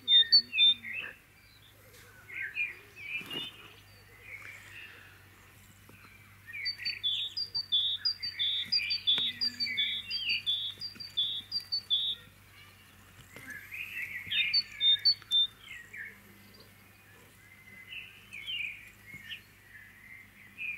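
Songbirds singing outdoors, several chirping and warbling phrases overlapping, with one bird repeating a short two-part note about twice a second for several seconds in the middle.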